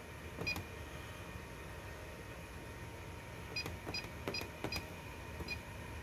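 Touchscreen building-controls panel giving short high beeps as its on-screen buttons are pressed: one about half a second in, then a quick run of five near the end.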